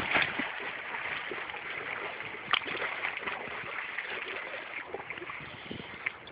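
Lake water lapping and splashing in small, irregular splashes, with a sharper splash about two and a half seconds in.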